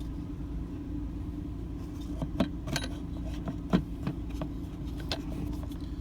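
Scattered light clicks and knocks of a plastic RV toilet water valve and its fittings being handled and worked into the valve's slide track, over a steady low hum.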